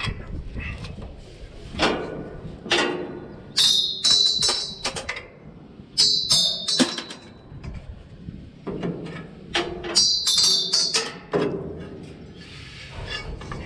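Irregular metal-on-metal clanks and knocks as steel parts are struck and worked free from an old hay baler. Several strikes ring brightly like struck steel, the loudest a little before halfway and about three-quarters through.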